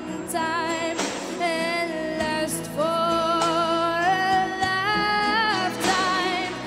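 A young girl singing into a microphone over backing music, with wavering, ornamented notes and then one long held note that steps up in pitch about halfway.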